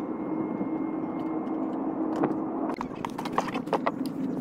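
Electric air pump running with a steady hum, inflating an air-beam tent. Near the end, a run of sharp clicks and taps sounds over the hum.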